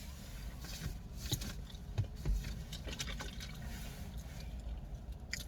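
Eating sounds: scattered wet mouth clicks and smacking over a low steady hum.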